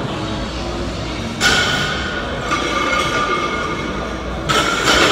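Gym weights clanking twice, about a second and a half in and again near the end, each knock ringing on briefly like struck metal, over a steady weight-room background.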